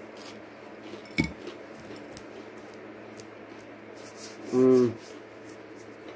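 Hands rubbing together, brushing breading crumbs off the fingers while eating, with a sharp click a little over a second in. About four and a half seconds in comes a short hummed "mm" from the eater, the loudest sound.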